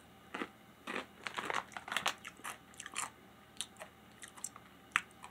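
A person biting into and chewing a Takis Fuego rolled corn tortilla chip: a run of sharp, dry crunches, thickest in the first couple of seconds and thinning to scattered crunches toward the end.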